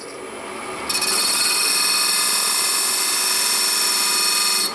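Wood lathe running up to speed, then steel divider points pressed into the spinning wooden cylinder to score marking lines. This gives a loud, high scraping hiss that starts about a second in, holds steady and cuts off suddenly near the end.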